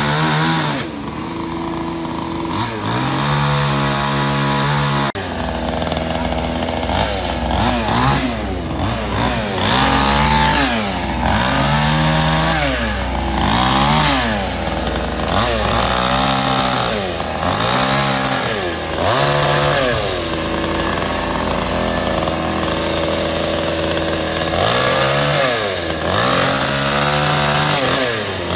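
Two-stroke chainsaw cutting up the branches of a felled tree: it runs at a steady note, then revs up and drops back over and over, about every two seconds, as it bites into the limbs.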